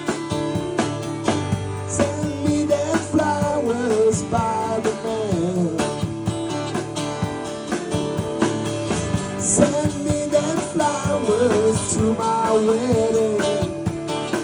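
Live rock band playing an instrumental passage: drum kit with cymbals keeping the beat under acoustic and electric guitars, and a melody line that bends up and down in pitch.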